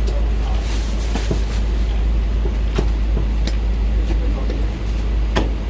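Cleaver chopping roast meat on a wooden chopping block: several sharp knocks at uneven intervals over a steady low rumble.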